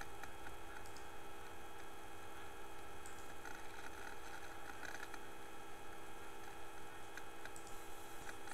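Steady electrical hum and hiss from the recording line, with a few faint clicks.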